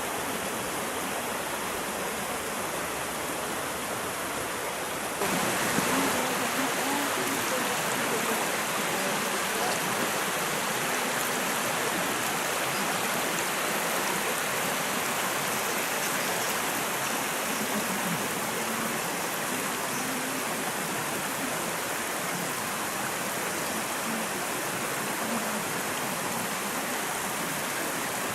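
A waterfall rushing steadily, its water noise filling the whole range. About five seconds in it jumps louder and brighter, as if the sound were suddenly heard from closer to the falls.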